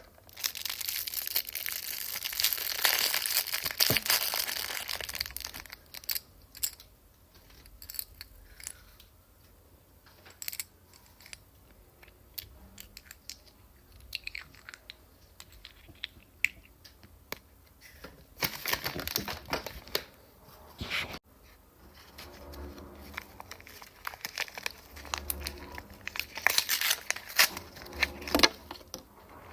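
Toy packaging being torn open and crinkled by hand, in rustling bursts in the first few seconds, again about two thirds of the way through and near the end, with small rustles and clicks between.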